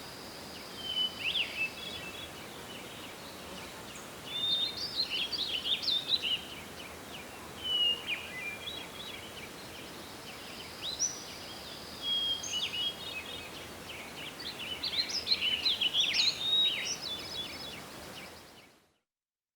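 Forest ambience: songbirds singing in bursts of chirps and trills with a few held whistled notes, over a steady soft wind hiss. It fades out to silence near the end.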